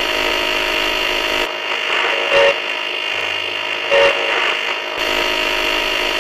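Spirit box made from a hacked Morphy Richards R184 radio sweeping the AM band: a steady buzzy static with two brief blips of sound, about two and a half and four seconds in. The uploader takes the second blip for a spirit voice saying 'Save John'.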